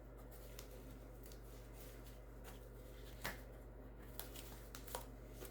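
Quiet room tone with a steady low hum, broken by a few faint clicks and taps, about three, four and five seconds in, from handling paint cups while pouring acrylic paint.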